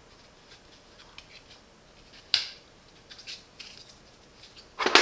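Light plastic clicks and taps from a robot vacuum's HEPA filter and dust container being handled and fitted together. One sharper click comes about two and a half seconds in, a few small ticks follow, and there is a louder clatter at the end.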